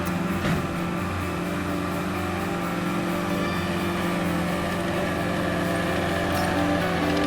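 Cat skid steer's diesel engine running steadily, with background music mixed in.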